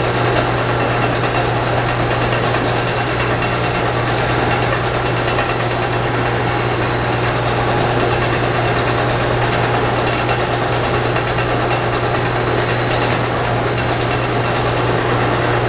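Four-head cheese depositor running through its filling cycle: a steady machine noise over a constant low hum.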